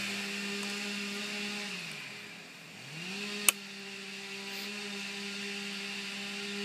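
Chainsaw engine revving up to full throttle and holding, dropping off about two seconds in, then revving up again and holding to the end. A single sharp click sounds about halfway through.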